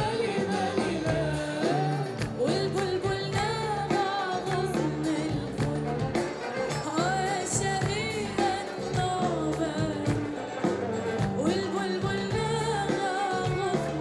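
A woman singing an Arabic song live with a band, her voice amplified and the melody ornamented and wavering, over bass guitar and drums.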